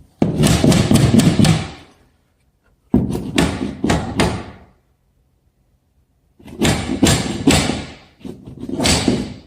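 Wooden shims being tapped in under a kitchen base cabinet to level it, in four short runs of quick knocks with silent gaps between them.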